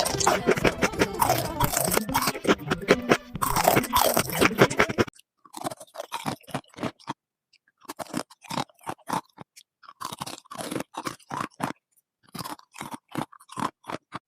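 Close-miked crunching and chewing of crisp food: a dense, loud run of crunches for about five seconds, then it cuts to quieter, separate crunchy bites in quick clusters with short pauses between them.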